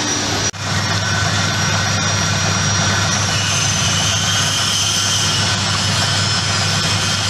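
Peanut shelling machine running steadily: a constant mechanical drone over a low hum, with a momentary break about half a second in.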